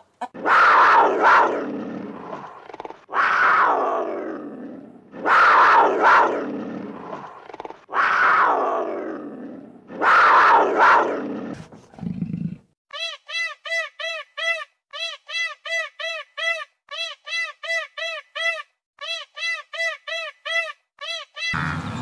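A big cat, labelled a cougar, calling five times in a row, each loud call falling in pitch and fading over about two seconds. After that comes a rapid run of short, clear chirps, about four to five a second in quick groups.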